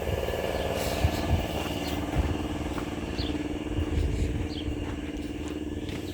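An engine idling steadily, with a few light knocks and clicks.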